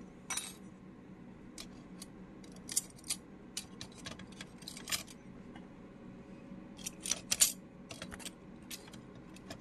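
Light, irregular clicks and clinks of small metal shutter parts on a Wagoflex camera being worked loose and handled, with one sharper click a little after seven seconds.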